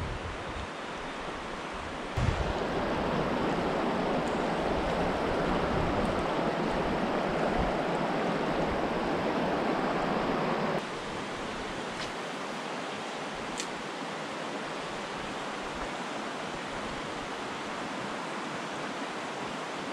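Steady rush of a small river's flowing water. It turns louder abruptly about two seconds in and drops back just as abruptly about eleven seconds in.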